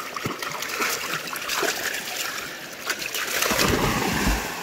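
A Texas Heeler splashing through creek water, with a run of short splashes. The heaviest splashing comes between three and four seconds in, as the dog bounds out from the shallows into deeper water.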